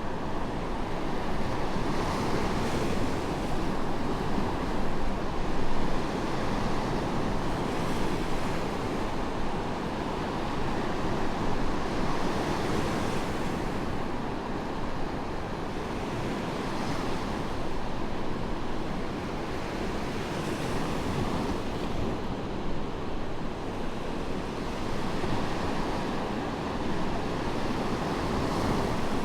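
Medium waves breaking and washing up on a sandy beach, a continuous surf with swells every few seconds, with some wind on the microphone.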